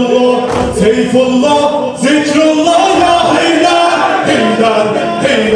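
Male voices singing an unaccompanied Shia mourning lament (noha) in long, held melodic lines.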